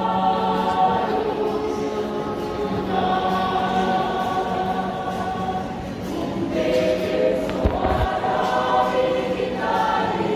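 Mixed choir of women and men singing in harmony, holding long chords that change every few seconds.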